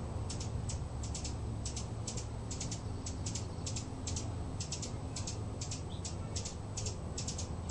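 Rapid, dry, high-pitched chip notes of a small bird, about four a second and irregular, some in quick pairs, over a steady low hum.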